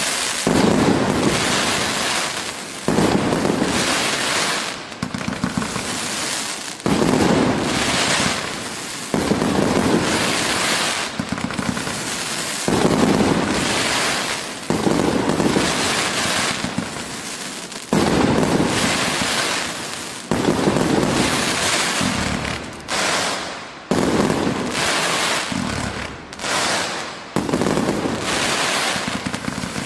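Meifeng 188-shot 'Black Mamba' fireworks cake firing shot after shot: dense crackling from the bursting stars, surging afresh with a sharp onset every two to three seconds.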